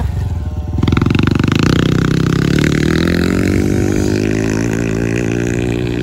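Dirt bike engine opening up hard about a second in, then running at high, steady revs that ease slightly.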